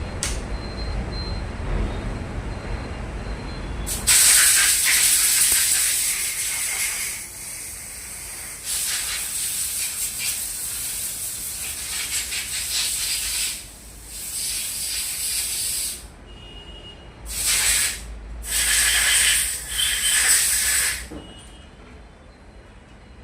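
A pressurised jet hissing in about five bursts as motorcycle motor parts are blasted clean, the first starting a few seconds in and the last ending near the end, with a low rumble before the first burst.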